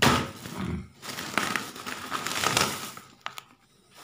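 Clear plastic clothing packets crinkling and rustling as they are handled, stopping about three seconds in.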